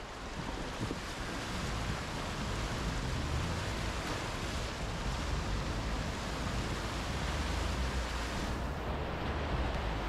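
Floodwater rushing and splashing along the side of a Mitsubishi Triton ute as it wades through a flooded river crossing, with a steady low rumble underneath. The rush swells over the first few seconds and then holds steady.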